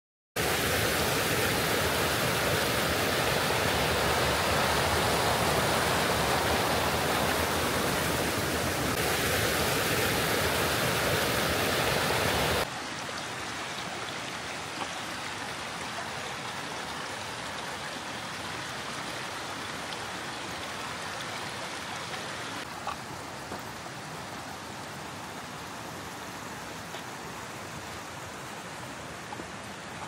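A small forest brook rushing and splashing over a little cascade, a steady water noise. About twelve seconds in it drops suddenly to a quieter, steady rush.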